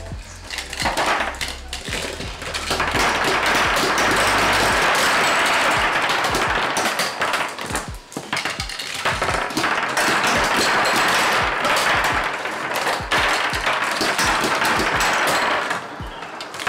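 Rapid clicking and clattering of marbles fired from B-Daman toy shooters, hitting the table and knocking plastic Crash Tower targets apart so parts and marbles rattle across the tabletop. Upbeat background music plays throughout.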